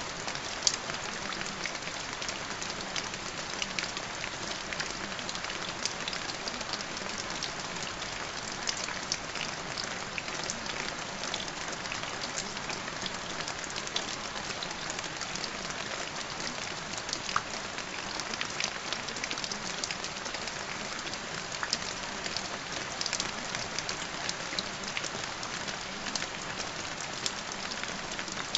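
Steady rain: an even hiss of falling water with many small, scattered drop ticks.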